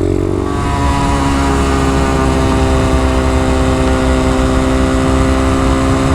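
Honda Dax's small four-stroke single-cylinder engine running under way, still a bit cold. It settles to a steady pitch about a second in and holds there.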